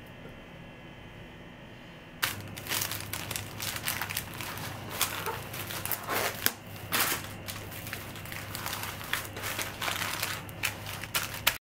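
Plastic cling film and baking paper crinkling and crackling as hands wrap and smooth them over an unbaked pizza, starting about two seconds in with many sharp crackles, then cutting off abruptly near the end.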